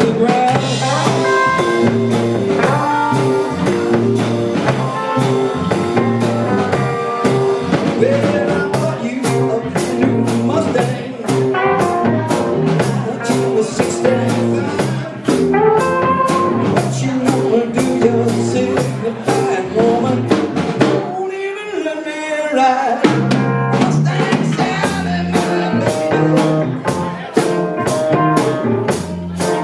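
A live rock and roll band playing: a drum kit keeps a steady beat with cymbal strokes over a stepping bass line. The bass and drums drop out briefly about two-thirds of the way through, then come back in.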